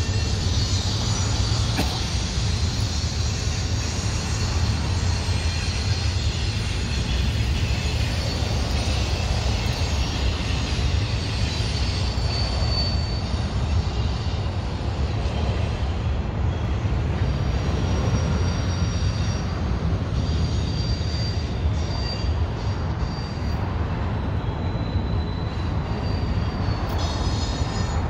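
Freight train of intermodal and auto-rack cars rolling steadily past, a continuous heavy rumble of wheels on rail, with brief high wheel squeals now and then.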